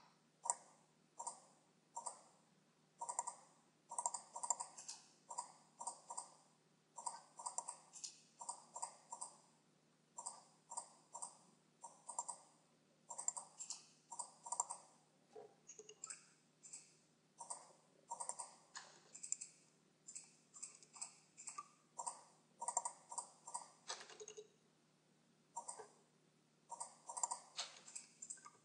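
Computer mouse buttons clicking, faint and sharp, singly and in quick runs of two to four, many times over.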